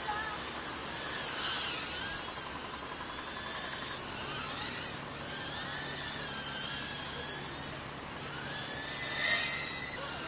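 Mobula 6 tiny FPV whoop drone in flight. Its brushless motors whine high and waver up and down in pitch with the throttle, swelling louder briefly about a second and a half in and again near the end.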